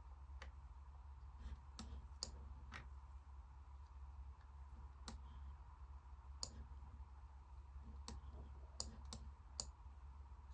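Faint, irregular computer mouse clicks, some in quick pairs, over a steady low electrical hum.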